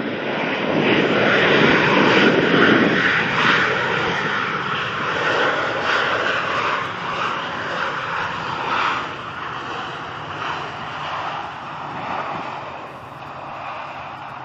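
Jet airliner's engines running as it passes close by, loudest in the first few seconds and then slowly fading as it moves away.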